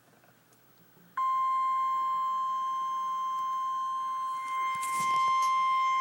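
NOAA Weather Radio warning alarm tone, a single steady 1050 Hz tone that switches on abruptly about a second in and holds, signalling a tornado watch. A brief crackle sounds near the end.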